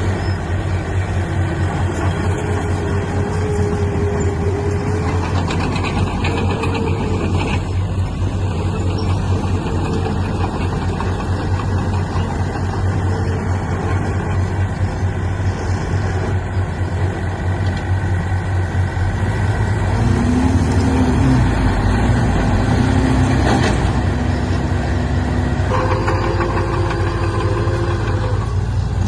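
Heavy diesel engines of a bulldozer and trucks running under load. A steady low rumble gets slightly louder with a changed engine note about twenty seconds in, and the note shifts again near the end.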